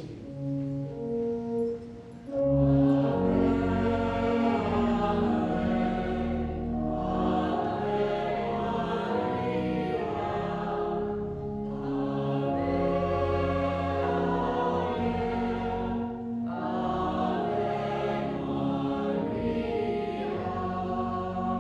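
A choir singing a slow sacred hymn verse in long held notes, in four phrases of a few seconds each after a few short opening notes.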